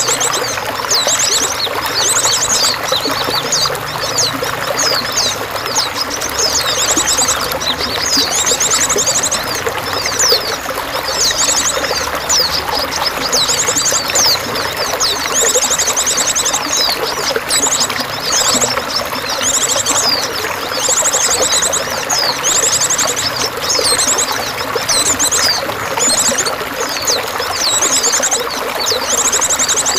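Steady pouring, splashing water with songbirds singing over it: many quick high chirps and repeated fast, buzzy trills.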